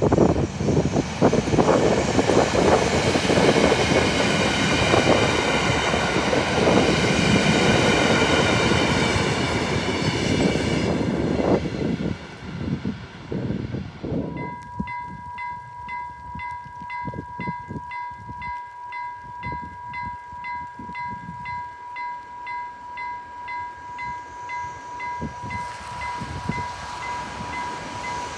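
A Dv12 diesel-hydraulic locomotive and a heavy-load Schnabel wagon pass close by with loud rumbling and wheel noise, which dies away about twelve seconds in. From about halfway on, a level-crossing warning bell rings steadily with a fast, regular beat as the train approaches.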